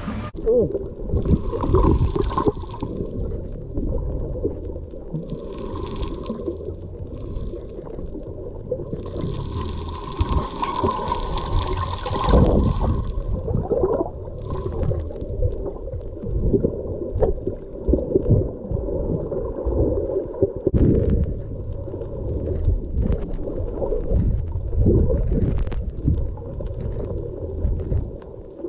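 Muffled underwater noise picked up by a camera held below the surface while snorkeling: an uneven low rumble and gurgle of moving water, with a few short hissing stretches, the longest in the middle.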